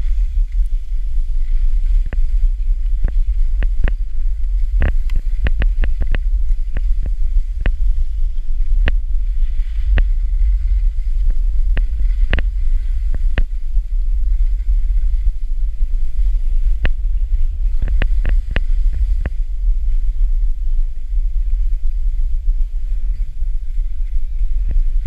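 Wind rumbling and buffeting against the microphone of a camera carried by a skier going downhill, with skis hissing over the snow. Scattered sharp clicks and knocks come through, some in quick clusters.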